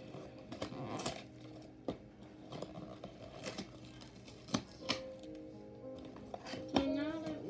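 Background music with a steady melody, over several sharp clicks and scrapes of a cardboard slime-kit box being handled and opened by hand.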